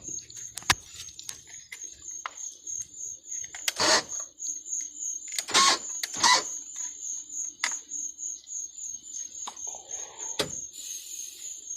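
A string of sharp clicks and knocks from handling a Dodge Durango's driver's door lock and latch, the loudest about four and six seconds in. Crickets chirp steadily throughout.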